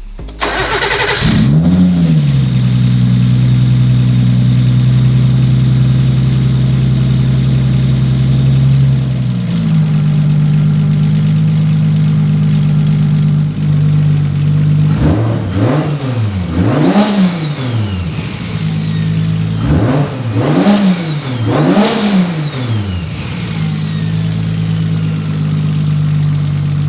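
Nissan 240SX's swapped RB-series inline-six engine starting, flaring up briefly and settling into a steady idle. Midway come two pairs of quick throttle blips, each rising and falling back, with high falling whistles as the revs drop, before it returns to idle.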